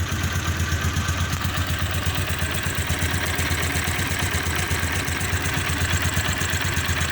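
TVS Apache 160 (2020 model) motorcycle's single-cylinder four-stroke engine idling steadily, with an even low pulse.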